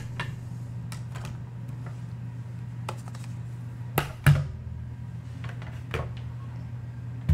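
Scattered clicks and knocks of computer gear being handled on a glass desk: a USB drive unplugged and lifted away and another drive brought in. The loudest knock comes a little past four seconds in, over a steady low hum.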